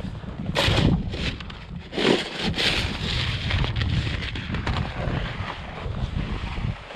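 Wind buffeting the microphone, a steady low rumble with louder gusty bursts about half a second in and again around two seconds in.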